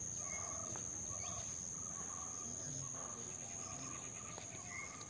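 Steady high-pitched trill of insects, with a lower, short chirping call repeating about twice a second.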